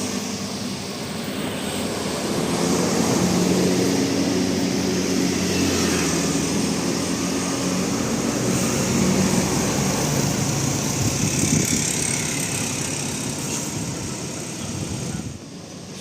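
A large bus passes with its engine running as a steady low drone over road noise. The sound swells in the first few seconds, fades slowly toward the end and drops away sharply just before the end.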